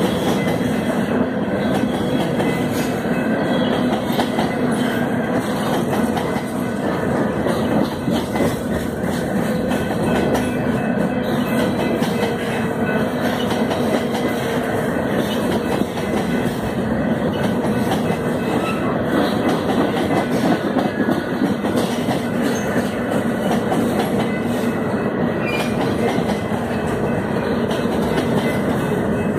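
Freight train's covered hopper cars rolling past close by: a steady rumble and clatter of steel wheels on rail.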